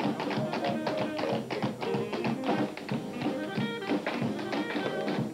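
Tap shoes striking a stage floor in quick, dense rhythms, over music from a live band.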